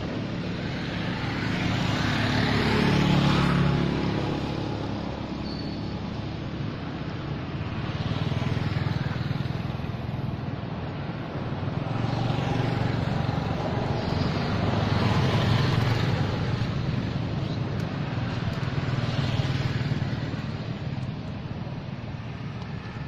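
Motor vehicles passing one after another, a steady low engine and road rumble that swells and fades about four times.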